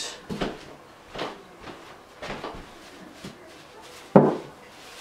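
Footsteps and handling noises on a carpeted floor: a few soft thuds and rustles, then one sharper knock about four seconds in as a cloth is picked up.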